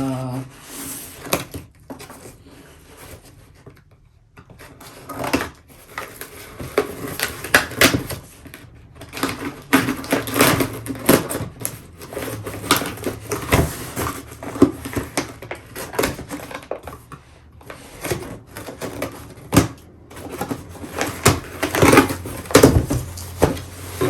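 A delivered package being opened by hand: cardboard and plastic wrap rustling and scraping, with irregular clicks and knocks. It is quieter for a couple of seconds early on, then busier.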